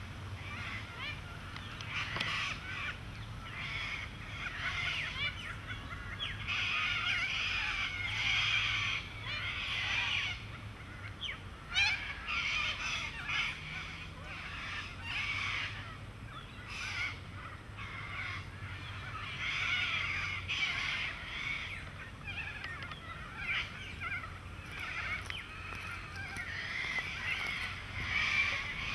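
A dense chorus of many birds giving harsh, chattering calls over one another without a break, with a faint steady low hum underneath.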